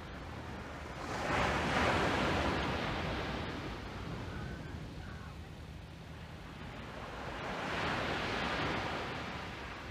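Small waves breaking on a sand beach: two swells of surf, one about a second in and a weaker one near the end, over a steady low wind rumble.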